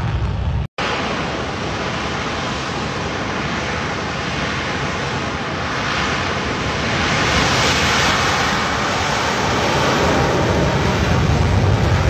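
Jet engines of Blue Angels F/A-18 fighters running at high power on the runway: a steady, loud rush of engine noise that grows louder about halfway through, after a brief drop-out under a second in.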